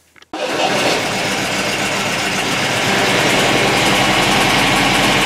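An MGB's 1.8-litre B-series four-cylinder engine running steadily. The sound comes in abruptly about a third of a second in. The engine is fed by a newly fitted SU electric fuel pump and takes it well.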